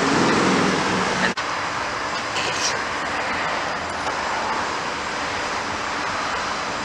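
Steady vehicle and road noise: a low engine hum for about the first second, then, after a sudden brief drop, an even steady rush.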